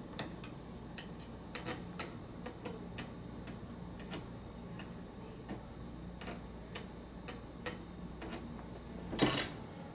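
Small, irregular metallic clicks and taps from an American 5200 series padlock being handled and worked at, with one louder clack near the end.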